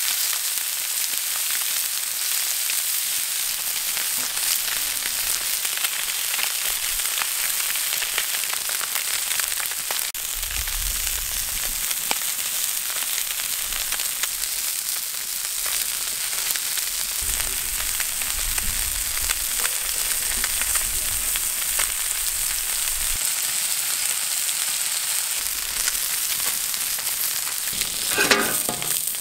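Marinated salmon pieces frying in oil on a flat griddle: a steady sizzling hiss with small crackling pops. Near the end a metal spatula scrapes across the griddle as the pieces are turned.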